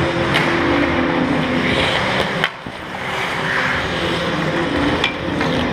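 Ice hockey play close to the net: a steady rush of skates scraping the ice, broken by three sharp clacks of stick and puck spread through the moment.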